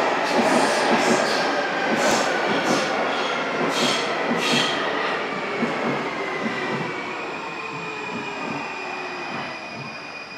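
Munich U-Bahn subway train pulling into an underground station and braking: loud wheel-and-rail rumble with a few short wheel squeals in the first half, and a whine that falls in pitch as the train slows. The sound fades steadily as it comes to a stop.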